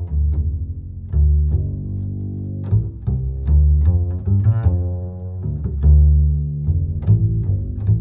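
Background music played by low strings, a line of deep held notes with sharp note onsets.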